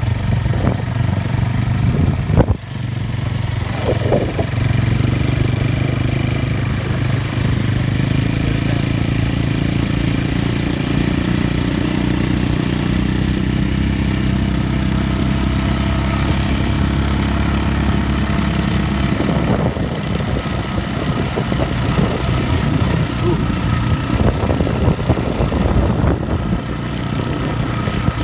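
ATV (quad bike) engine running with a steady low drone, its pitch shifting a little as the quad moves. A sharp knock about two and a half seconds in.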